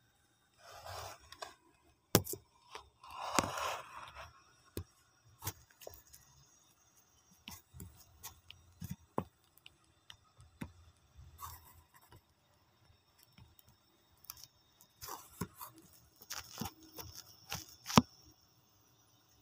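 Scattered rustling, scraping and clicking from handling close to the phone's microphone. Sharp clicks about two seconds in and again near the end are the loudest.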